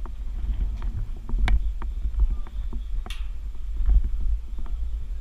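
Wind buffeting the microphone with a steady low rumble, over scattered light clicks and knocks of hands gripping and moving along rusty steel bars. A brief high squeal falls away about three seconds in.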